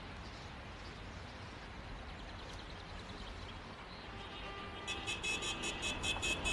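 A faint low rumble of cars approaching, then about five seconds in a fast, rhythmic, high-pitched tooting starts, about three pulses a second, from the flower-decked wedding car and the car behind it.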